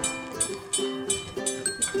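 Light background music: a plucked-string melody in short separate notes over a steady high ticking beat about three times a second.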